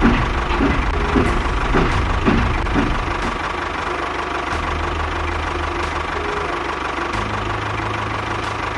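A motor running steadily with a low hum that shifts in pitch about halfway through and again near the end.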